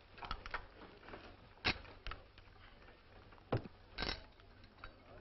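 Casino chips clicking together as they are handled and stacked at a roulette table: a handful of short, sharp, irregular clicks, the strongest about a second and a half in and again near the four-second mark.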